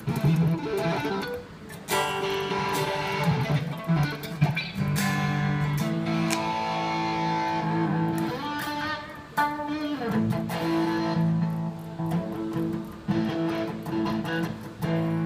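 Magneto S-style electric guitar played through an amplifier: a run of chords and single notes, with chords held and left to ring out.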